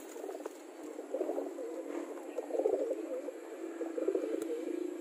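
Pigeons cooing, several low warbling coos about a second apart, over a steady low hum.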